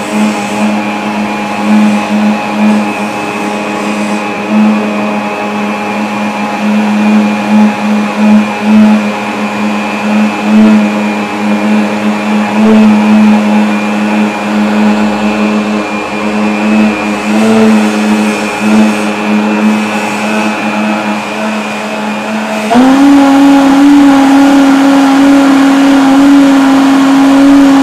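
Electric blender motor running steadily at one speed. About three-quarters of the way through it is switched to a higher speed, and its hum jumps up in pitch and gets louder.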